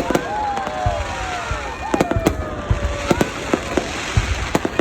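Fireworks going off in a rapid, irregular string of sharp bangs and cracks, with a few tones sliding down in pitch between them.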